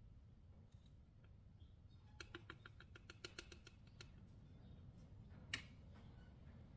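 Faint clicks of gunpowder being tapped out of its canister onto a reloading scale: a quick run of a dozen or so small ticks about two seconds in, then a single louder click near the end.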